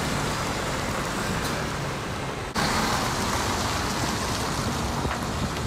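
Heavy truck's diesel engine running as it pulls away, over steady road noise. The sound breaks off for an instant about two and a half seconds in and picks up again.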